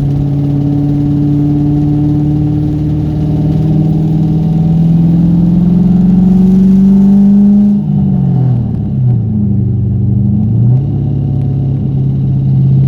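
1998 Mustang Cobra's 4.6-litre DOHC V8 pulling in third gear around 2,000 rpm, its pitch slowly rising; about eight seconds in the revs drop and waver, then settle to a steady note. This is the rpm range where the owner hears a tap or rattle that he thinks may come from the valve train or the block.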